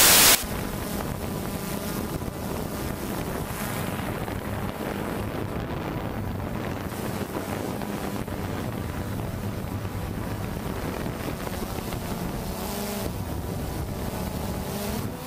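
A steady motor hum with wind noise on the microphone.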